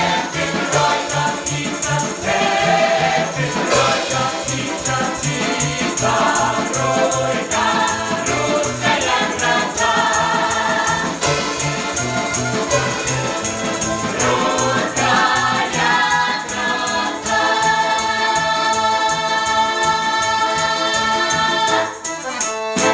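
Folk choir singing a fast Russian folk song over steady jingling percussion and a rhythmic beat, closing on a long held chord that cuts off at the very end.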